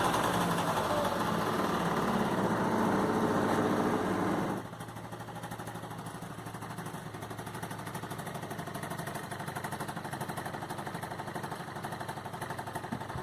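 Honda Dio AF27's freshly rebuilt 50cc two-stroke engine running at raised revs, dropping sharply about four and a half seconds in, then idling steadily with an even rhythm.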